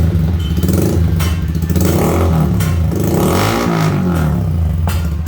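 Yamaha Sniper 155 single-cylinder motorcycle engine running through an aftermarket conical tube-type exhaust, its throttle blipped so the exhaust note rises and falls several times, with a deep dip and climb in pitch about halfway through and a few sharp cracks along the way.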